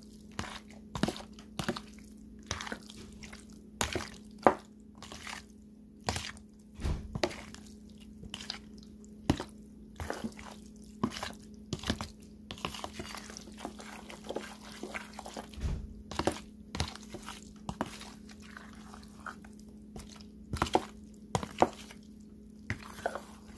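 A spoon stirring gelatin cubes, fruit and sago through a creamy milk dressing in a container: irregular wet squelches and small clicks of the spoon against the sides.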